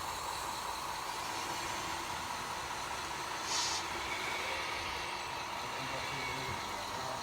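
Radio-controlled model crawler loader running steadily, its small motor and drivetrain giving a constant whine. A short hiss comes about three and a half seconds in.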